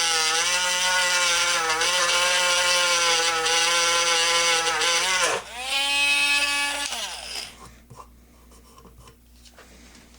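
Dremel rotary tool grinding down hardwood dowel plugs in a gun stock, its whine wavering and dipping under load. About five seconds in it drops briefly, comes back as a steady higher whine, and winds down to a stop about seven seconds in.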